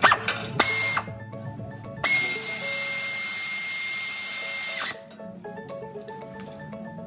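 A power tool running at a steady pitch in two runs: a brief one just under a second in, then a longer one of about three seconds that cuts off suddenly. Background music with light mallet notes plays underneath.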